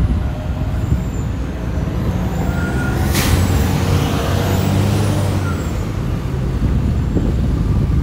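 A heavy road vehicle's engine running close by on the street, with a short sharp hiss about three seconds in.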